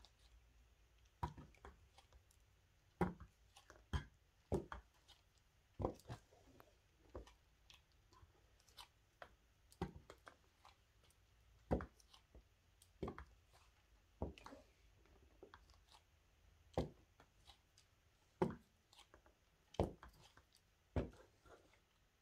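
High-heeled sandals knocking on a hard floor as the wearer steps and shifts her feet: separate sharp clacks, about one every second or so, uneven, with a few longer gaps.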